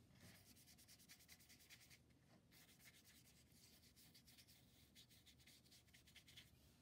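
Paintbrush scrubbing paint onto paper in quick back-and-forth strokes, faint and scratchy, with a brief pause about two seconds in.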